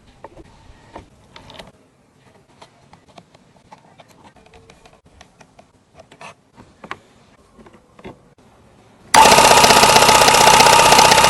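Light scattered clicks and taps of parts being handled, then about nine seconds in a motor-driven machine starts abruptly and runs loud and steady with a fast buzzing rattle.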